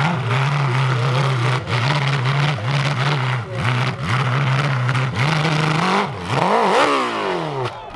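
Hill-climb motorcycle engine held at high revs with brief dips as the rear tyre digs and spits dirt up a steep slope; near the end it revs sharply up and falls away as the bike rears into a wheelie, then the engine note drops off.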